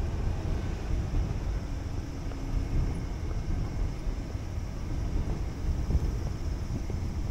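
Steady low rumble of outdoor street ambience, with vehicle noise in it.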